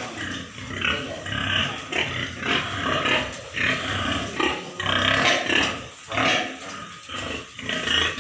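Domestic white pigs grunting: short, rough calls that follow one another without a break.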